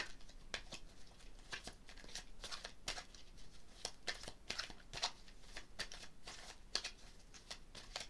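A tarot deck being shuffled and handled, a run of many quick, irregular papery flicks and clicks of cards.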